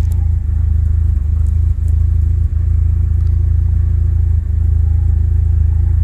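Cadillac ATS 2.0 L turbocharged four-cylinder engine idling with a steady low rumble that dips briefly and irregularly a few times. The engine is misfiring and running rough, with rail fuel pressure stuck far below what is commanded, which the mechanic puts down to a bad high-pressure fuel pump.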